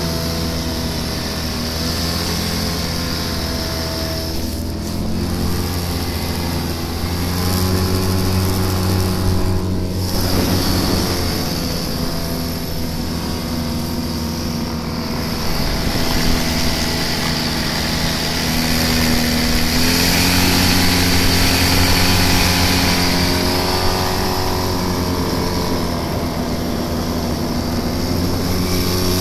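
Tractor engine running steadily as it pushes through deep snow, its pitch shifting slightly and getting a little louder about twenty seconds in, over a constant hiss.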